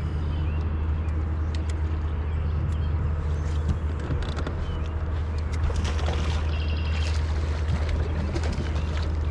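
A boat's outboard motor running steadily with a low, even hum, the boat under way.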